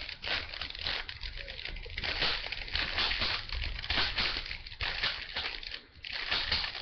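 Plastic 3x3 Rubik's cube being turned rapidly by hand, a continuous run of quick clicking and rattling layer turns with a short pause near the end.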